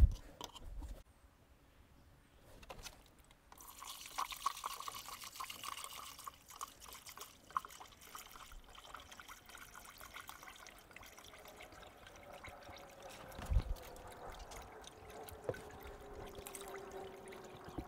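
Antifreeze poured from a plastic jug into a spill-free funnel on the radiator filler neck, a steady trickling, splashing pour that starts a few seconds in as the cooling system is refilled. A faint tone slowly falls in pitch near the end, with one dull thump shortly before.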